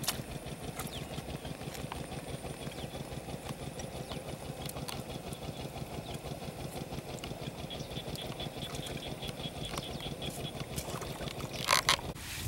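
A small engine running steadily in the background with a fast low putter. A high pulsing tone comes in for a few seconds past the middle, and a short loud burst sounds near the end.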